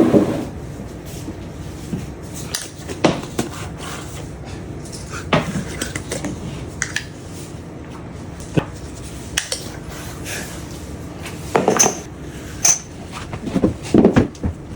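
Kitchen clatter of seasoning containers, dishes and utensils being handled and set down on a counter: scattered knocks and clinks, with two short high pings about twelve seconds in.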